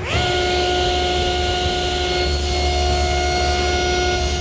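Power saw switched on: the motor spins up within a fraction of a second, then runs at a steady speed with a steady whine.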